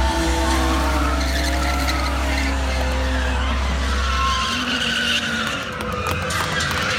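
Stunt car engine revving up and down while its tyres skid.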